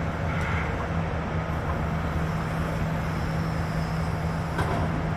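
Excavator's diesel engine running at a steady, even drone.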